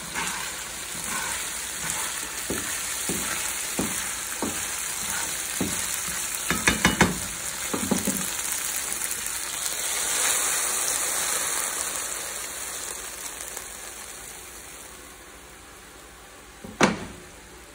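Pan juices and pickles sizzling in a hot nonstick frying pan, with a series of taps and clicks from a spatula and chopsticks against the pan as the pickles are lifted out. The sizzle fades over the last few seconds, and one sharp knock comes near the end.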